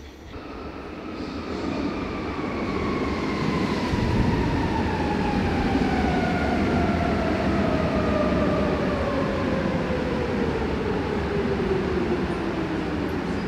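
Berlin U-Bahn train on line U2 slowing down: the rolling rumble grows louder over the first few seconds while the motors' whine falls steadily in pitch as it brakes.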